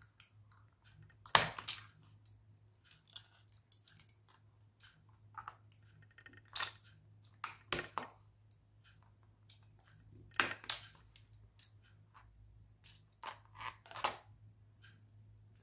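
Irregular sharp clicks and snaps of a utility knife cutting 3D-printed plastic parts free from their print, with the loudest snaps about a second and a half in, around ten seconds and near fourteen seconds. A faint steady low hum runs underneath.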